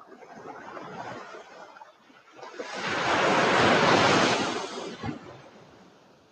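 Sea waves breaking and washing in foam: a small wave in the first two seconds, then a larger one that swells up about two and a half seconds in, rushes loudest for a couple of seconds and fades away.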